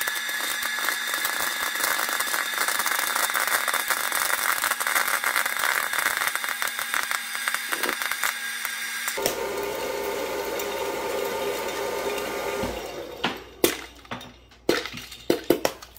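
Hot-air popcorn popper running: the fan motor whirs steadily while kernels rattle and pop with rapid clicks. About nine seconds in the motor's tone changes, and a few seconds later the whirring gives way to a string of separate knocks and clicks.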